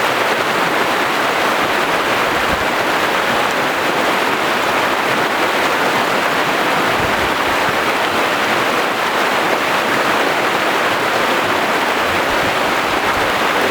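Steady rush of flowing river water, an even hiss at a constant loud level.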